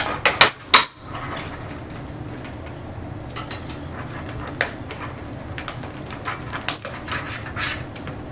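Sharp plastic clicks, three in quick succession within the first second, then scattered lighter clicks and handling noises: the latches on a motherboard's RAM slots being snapped open and memory modules being handled.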